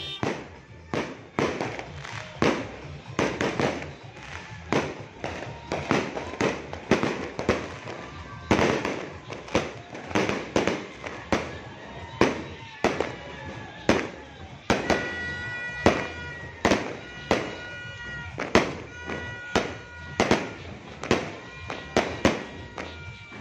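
Aerial fireworks launching and bursting overhead in a rapid barrage, a sharp bang every half second to a second. Steady whistle-like tones run between the bangs in the second half.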